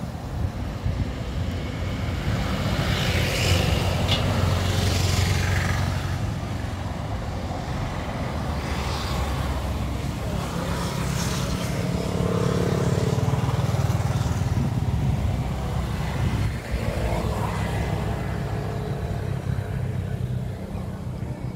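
Steady low rumble of wind buffeting the phone's microphone outdoors, with a few vehicles swishing past in swells that rise and fade.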